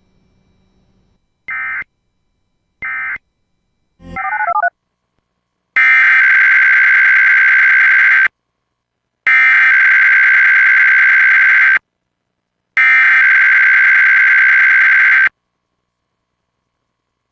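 Emergency Alert System SAME digital data bursts, modem-like buzzy chirps. First come two very short bursts about a second apart, closing one alert with its end-of-message code. After a brief rising sound, three identical bursts of about two and a half seconds each follow, a second apart: the header that opens the next alert.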